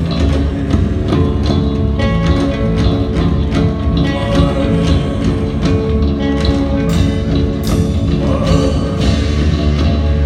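Live rock band playing an instrumental passage: guitar and bass over drums, loud through a concert sound system.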